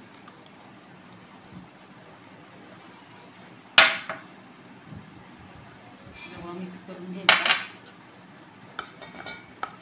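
A metal spoon clinking against a steel bowl: one sharp clink about four seconds in, a pair of clinks about seven seconds in, and a few lighter taps near the end, as spoonfuls of semolina go into the gram flour.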